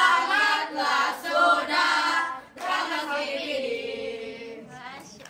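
A group of children's voices calling out together in a drawn-out, chant-like unison: one phrase, a short break, then a second longer phrase that falls in pitch and fades near the end.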